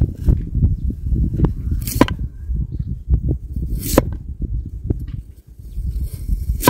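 Kitchen knife cutting through raw carrot and knocking on a wooden cutting board: a few sharp knocks about two seconds apart, over a steady low rumble.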